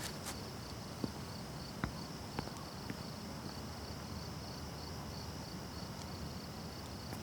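Crickets chirping steadily in an evenly pulsing, high chorus over a soft hiss, with a few scattered footsteps in the first three seconds.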